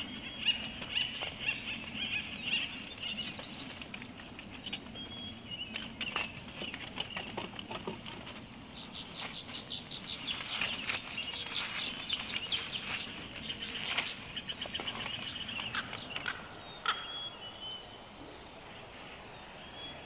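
Several small songbirds singing in a dawn chorus in pine forest. A fast trill runs from about nine to thirteen seconds in, with scattered chirps and clicks before and after.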